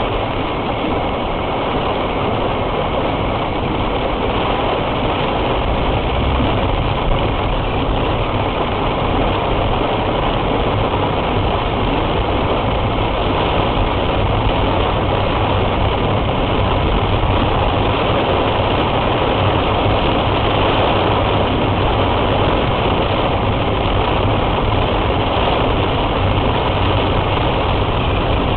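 Heavy rain falling on a car while its engine runs: a loud, steady hiss of rain with a low engine rumble beneath it.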